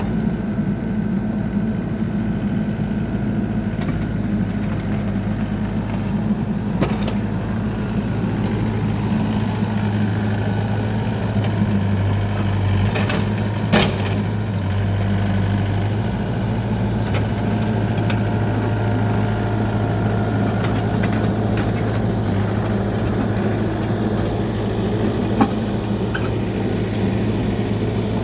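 A heavy machine's engine idling steadily, with a constant low hum and a few faint clicks and knocks.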